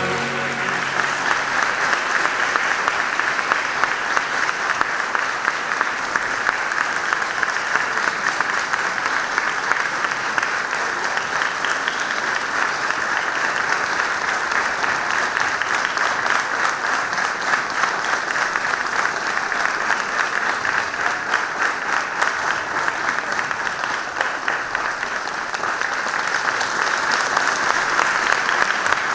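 Audience applauding with dense, steady clapping. It eases a little about three-quarters of the way through, then builds again near the end.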